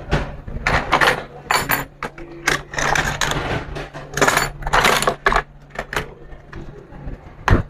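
Irregular scraping strokes on a circuit board, a blade working the copper tracks open, each stroke a short rasp, with a sharp click near the end. A steady low hum runs underneath.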